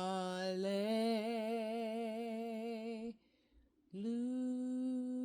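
A single voice humming a wordless devotional melody in two long held notes. The first steps up slightly about a second in and wavers with vibrato. After a short breath comes a second, slightly higher note held steady.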